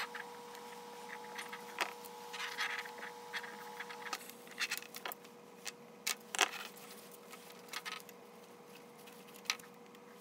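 Scattered small clicks and rustling as wires and metal pin terminals are worked through a rubber harness grommet with needle-nose pliers, over a faint steady hum.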